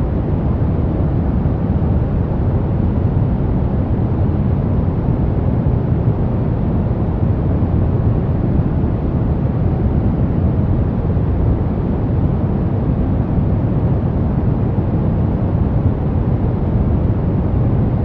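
Steady brown noise: an even, deep rumbling hiss weighted toward the low end, with no changes or events.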